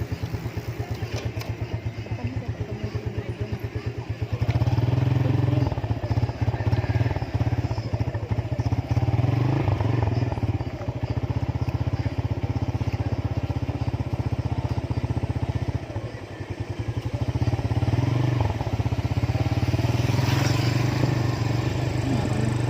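Motorcycle engine running under way with a low pulsing note. It picks up about four and a half seconds in, eases off briefly around sixteen seconds, then builds again.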